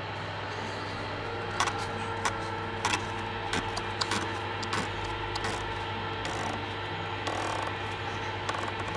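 Plastic oil filter housing cap being screwed down by hand onto its housing, giving a scatter of light clicks and scrapes, over a steady low hum.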